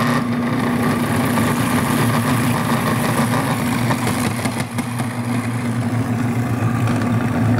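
Breville Sous Chef food processor motor running at a steady hum, its plastic dough blade turning flour and yeast water at the start of mixing bread dough.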